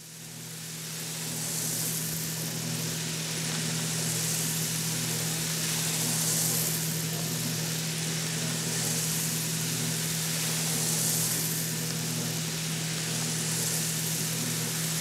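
Coffee roaster running: a steady low hum under a hissing rush of tumbling beans that swells about every two seconds, fading in over the first two seconds.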